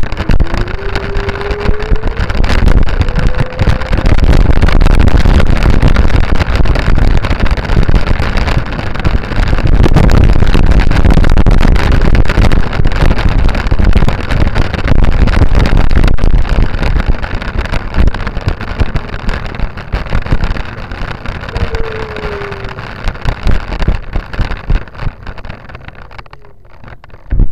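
Loud rumble and rattle with wind on the microphone of a camera moving along pavement, dense with small knocks; it eases off over the last several seconds and ends with a sharp knock.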